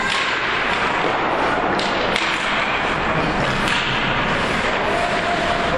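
Ice hockey play: a sharp crack of a stick striking the puck at the start, then more knocks of puck and sticks about two seconds in and again past three and a half seconds, over the steady noise of the rink.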